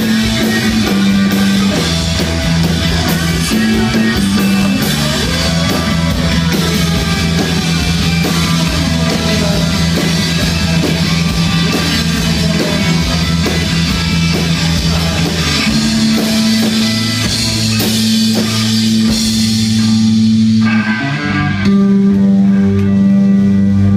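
Live rock band playing loudly: electric guitar, bass guitar and drum kit together, over held bass notes. About twenty seconds in the cymbals drop out, leaving ringing guitar and bass notes.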